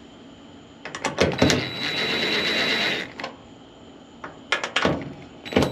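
Cordless screwdriver running in short spurts to loosen the Phillips screws on a dryer door switch. Each run starts with a few sharp clicks as the bit seats. The first run lasts about a second and a half, and another begins near the end.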